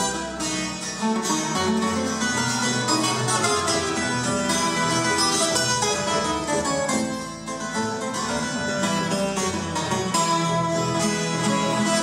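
Colombian Andean string trio playing live: tiples and requinto plucking a fast, busy melody and chords over a walking double-bass line, with a brief softer moment about seven seconds in.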